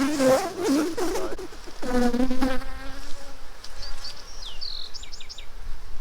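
Honeybees buzzing close by, riled up after being shaken into the open hive: single bees droning past at a wavering pitch, loudest near the start and again about two seconds in. A few short high chirps come near the end.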